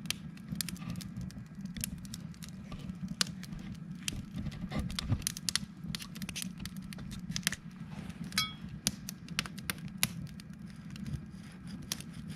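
Wood fire crackling: sharp, irregular pops and clicks over a steady low hum, with a brief ringing metallic clink about eight seconds in.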